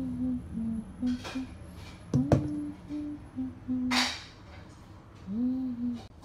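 Someone humming a tune in short held notes, with a sharp knock a little over two seconds in and a brief scrape about four seconds in as batter is worked in a metal tin.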